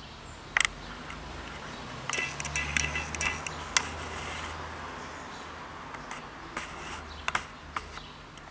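Handling noise from taking apart a plastic-cased OBD2 diagnostic tool: scattered sharp clicks and light rattling of the casing and small tools on a work surface, over a low steady hum. The loudest click comes a little under four seconds in.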